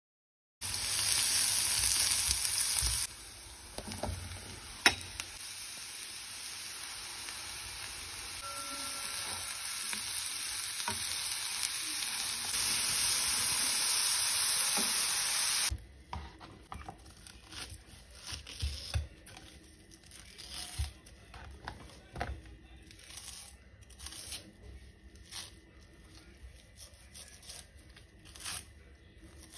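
Sliced champignons and onion sizzling in a frying pan, stirred now and then with a wooden spatula; the sizzle gets louder toward the middle. It cuts off about halfway through, leaving quiet scattered taps of a knife and hands working raw turkey breast on a wooden cutting board.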